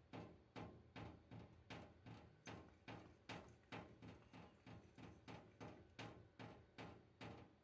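Water dripping from the kitchen tap into a stainless steel sink: faint, evenly spaced ticks, about two drops a second.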